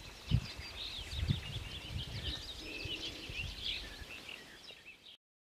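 Several songbirds chirping and trilling at once, with low thumps beneath them, the loudest near the start. The sound cuts off suddenly about five seconds in.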